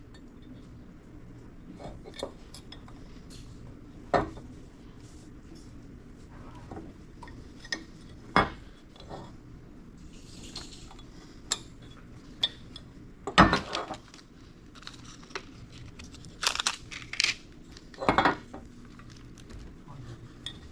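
Hand tools clinking and knocking on a water pump housing while old silicone sealant is picked and cleaned out of it. The strikes are sharp and irregular, the loudest about 13 seconds in, and there is a brief hiss around the middle.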